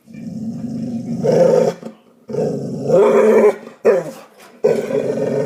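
Dog growling at a cat in three long bouts with short pauses between, plus one brief growl before the last.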